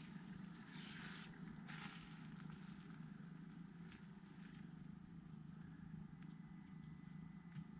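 Near silence: a quiet, windless lakeshore with a faint steady low hum and a few soft clicks.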